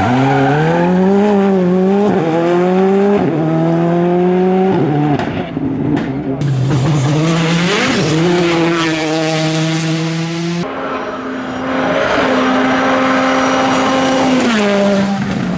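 Škoda Fabia R5 and Citroën DS3 R5 rally cars' turbocharged 1.6-litre four-cylinder engines at full throttle, the pitch climbing and dropping with each upshift. The sound cuts abruptly from one car to the next about six and ten seconds in.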